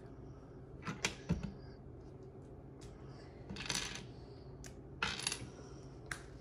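Small plastic LEGO pieces clattering and clicking as they are handled and rummaged through: two sharp clicks about a second in, then short rattles near the middle and again about five seconds in.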